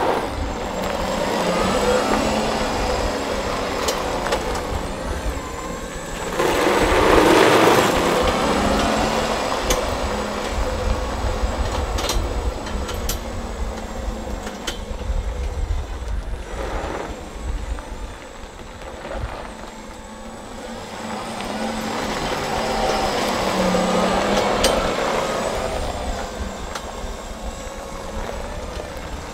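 Solectrac electric compact tractor with front loader driving across a gravel lot. Its electric drive runs quietly, with no engine note, and the sound swells loudest about a quarter of the way in.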